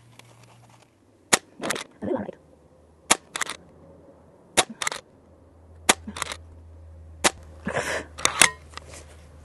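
Umarex Zelos .22 precharged air rifle firing a string of shots about every second and a half, each a sharp crack followed shortly by a softer click.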